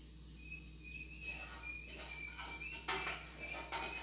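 A spoon scraping and knocking against a metal saucepan in several short strokes as the cream is scraped out. The sharpest knock comes about three seconds in. Faint steady cricket chirping runs underneath.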